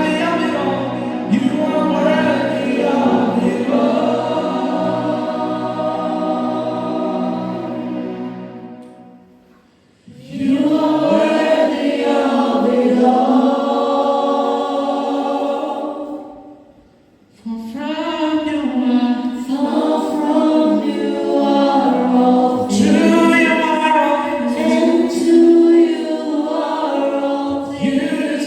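Gospel vocal group singing in close harmony, choir-style. The singing fades out twice, dropping almost to silence around ten seconds in and again around seventeen seconds in, and the voices come back in each time.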